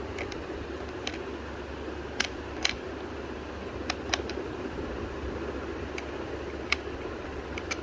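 Irregular sharp plastic clicks and taps from a small wireless keyboard being handled, about nine in all, over a steady background hum.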